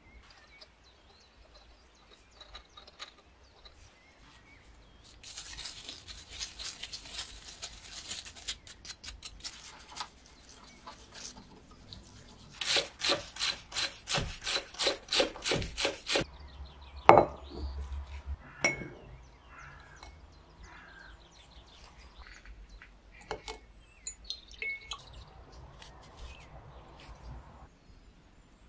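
A small rusty metal burner cap from a kerosene stove being scrubbed by hand to strip rust and grime, in rasping back-and-forth strokes. The loudest stretch, midway, runs at about three strokes a second. A single sharp knock follows shortly after.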